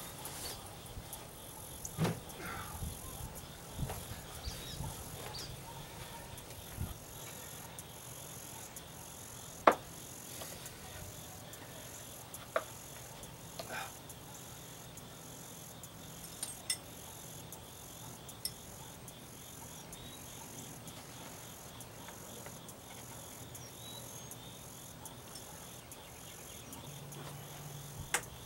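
Insects chirping steadily in a continuous pulsing chorus, with a few sharp knocks and clicks, the loudest about ten seconds in.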